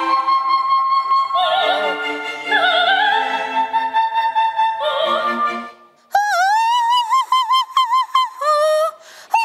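A recording of an operatic soprano with orchestra, the voice holding a high note. About six seconds in it stops, and a woman sings unaccompanied, imitating the high note with a wavering pitch.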